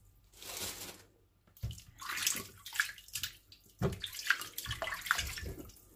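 Water splashing and sloshing in a plastic tub as hands work inside a gutted fish, pulling out the last of the guts, in irregular bursts with a brief pause about a second in.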